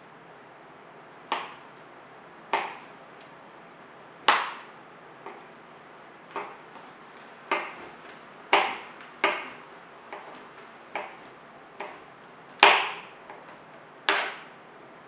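A kitchen knife striking a wooden cutting board in single, deliberate cuts: about a dozen sharp knocks, roughly one a second and unevenly spaced, the loudest a little before the end.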